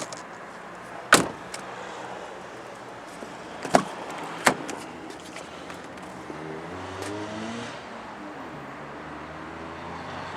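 Car doors of a Holden VE Commodore wagon clunking shut or being handled: three sharp knocks, the loudest about a second in and two more a few seconds later, followed by a brief wavering tone.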